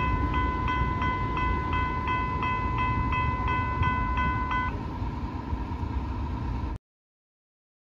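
Railroad pedestrian crossing warning bells ringing about three strikes a second over the low rumble of a Metra commuter train. The bells stop about five seconds in, and the sound cuts out abruptly near the end.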